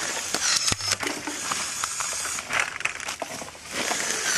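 Cordless battery chainsaw cutting wood, with a crackling, crunching sound in uneven bursts.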